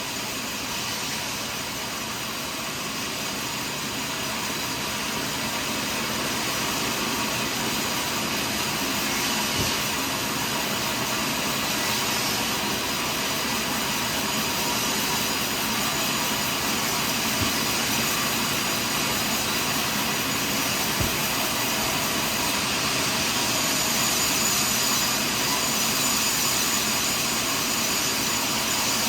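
Portable sawmill running steadily through a long cut in a big pine log, its machine noise building slightly over the first few seconds and then holding even.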